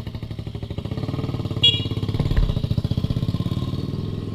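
Motorcycle engine idling with a fast, even putter, and a brief high beep about one and a half seconds in.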